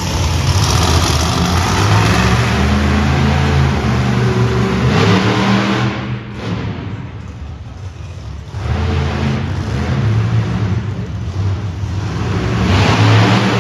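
Monster truck engines revving and running loud, with the pitch rising and falling. They ease off for a couple of seconds past the middle, then climb again near the end.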